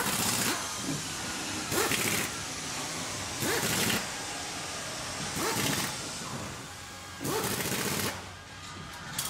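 Factory production-line ambience: a machine cycling, with a burst of rushing noise about every two seconds, five in all, each starting with a short rising whine, over steady machinery noise.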